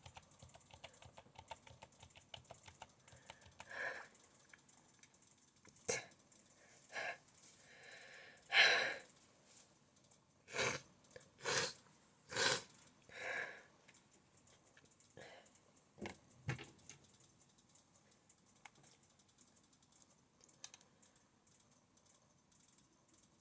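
Typing on a computer keyboard: quiet key clicks in short runs, broken by a handful of louder short noises in the middle, then only the odd click.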